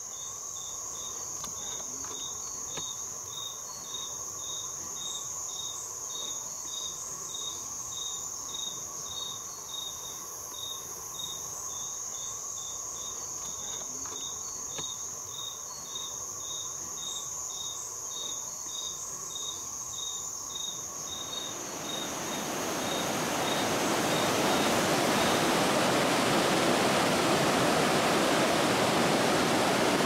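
Forest insects calling: a steady high buzz with a regular chirp about twice a second. About twenty seconds in, the rush of a rocky mountain stream fades in and takes over.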